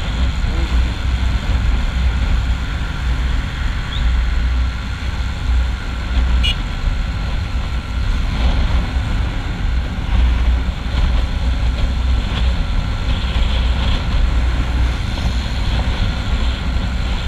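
Hozaka 150 GNX motorcycle cruising at highway speed: a steady, heavy rush of wind buffeting the microphone, with the engine running evenly underneath.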